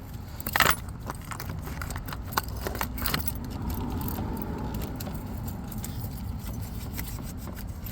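Metal tools clicking, clinking and scraping against a truck's frame and engine as paint is scratched off to make a good ground connection for a no-crank fault. A string of sharp irregular clicks over a low steady rumble.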